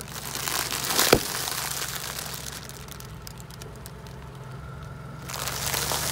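A car tyre rolling over sealed plastic bags of puffed corn snacks, crunching the puffs and crinkling the plastic, with one sharp crack about a second in. Scattered crackles follow, and a second loud stretch of crunching starts near the end as another tyre rolls onto more bags.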